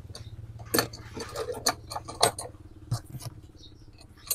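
Handling noise from a heavy 850 treble compression driver being turned and set against a plastic speaker horn: irregular clicks, light knocks and scrapes of metal on plastic.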